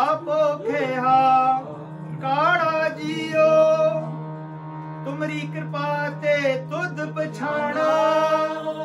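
Male voice singing Sikh kirtan in long, sliding held notes over a steady harmonium drone. The voice pauses about four seconds in while the drone carries on, then resumes.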